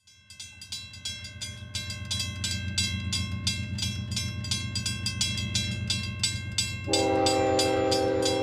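Approaching freight train: a low rumble that grows louder under a fast, even clacking of about four strokes a second. About seven seconds in, a diesel locomotive's air horn sounds a steady chord of several notes.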